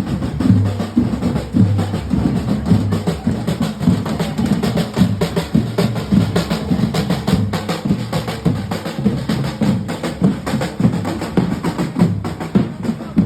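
Instrumental music with a busy drum and percussion rhythm over a bass line.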